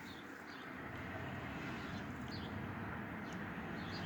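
Quiet steady low rumble of background noise, with a few faint short high chirps scattered through it.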